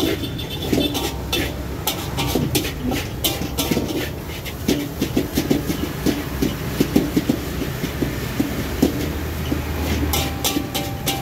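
Metal spatula clanking and scraping against a steel wok while stir-frying fried rice, in a quick irregular run of sharp knocks, over a steady low rumble.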